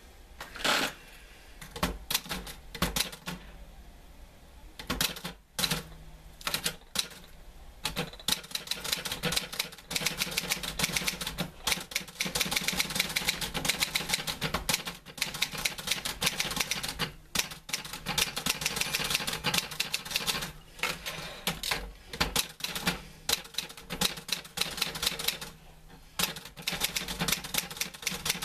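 Manual typewriter being typed on: key strikes in bursts, a few scattered strokes at first, then quick steady runs with brief pauses.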